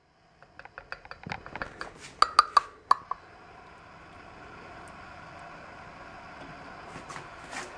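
A metal spoon clinking and scraping inside a small can of wet cat food as the food is knocked out onto a saucer, with a quick run of sharp clinks about two to three seconds in. After that a faint steady hiss carries on.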